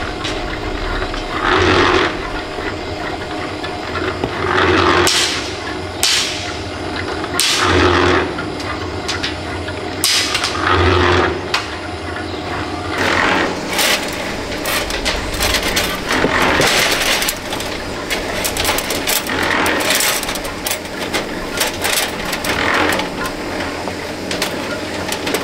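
Building-site tool noise: knocks and clatter, with a louder burst about every three seconds in the first half. Later the knocking comes denser and less regular.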